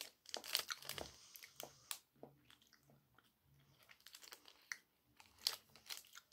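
Chewing a mouthful of white chocolate Lion bar, with faint irregular clicks and crackles bunched near the start and again near the end, along with the bar's wrapper rustling in the hands.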